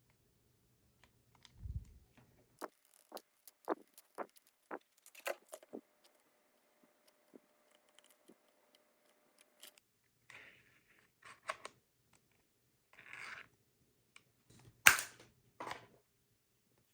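Cardboard being handled and worked by hand: scattered taps, clicks and scrapes. There is a low thump about two seconds in, and one sharp, loud click near the end.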